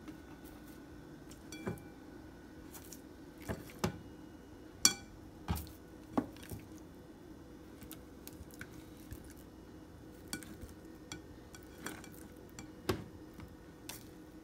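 Raw trout pieces being set by hand into a ceramic bowl: scattered light knocks and clinks against the bowl, with wet handling of the fish in between. The loudest knock comes about five seconds in.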